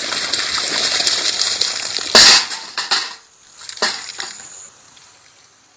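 Steady rush of water, then a single loud clattering strike about two seconds in, followed by a few lighter knocks before the sound fades away.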